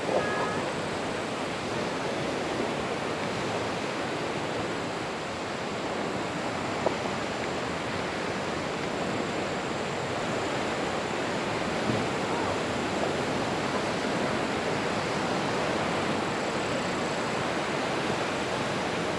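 Steady rushing outdoor noise of wind and small waves on a lakeshore, with one brief click about seven seconds in.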